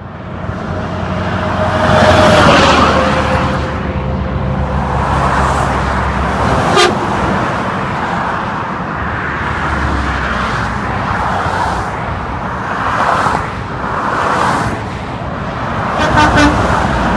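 Heavy interstate traffic with semi trucks passing close by: steady tyre and engine noise, swelling loudest a little after two seconds in as a truck goes past.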